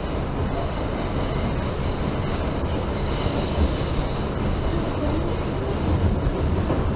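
New York City subway D train running along the rails with a steady rumble from wheels and running gear. A brighter, higher hiss rises for about a second and a half, starting about three seconds in.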